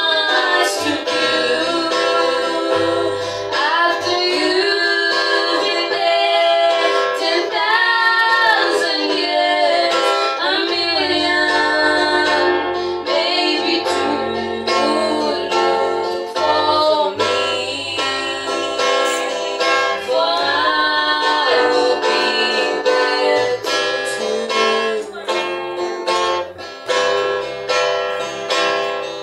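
Female voices singing a gospel song with guitar accompaniment.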